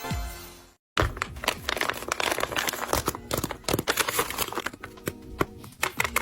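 A paper blind bag being handled and opened: dense crinkling and tearing of paper, many quick crackles. Music fades out within the first second before a short gap.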